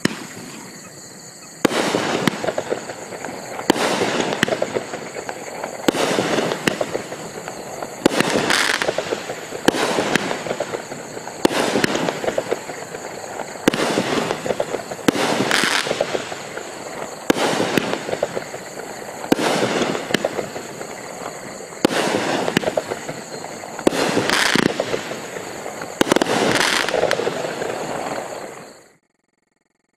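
16-shot, 200-gram consumer fireworks cake firing its aerial shots, a sharp burst about every two seconds with crackle between them. The sound stops suddenly near the end.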